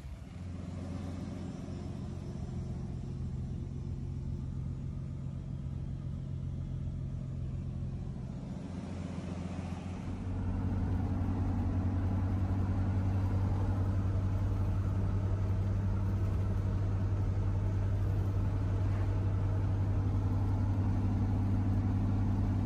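Datsun 280Z's swapped-in Nissan RB straight-six engine droning steadily at about 1,900 rpm while cruising near 50 mph, heard from inside the cabin with road noise. The drone gets louder about ten seconds in.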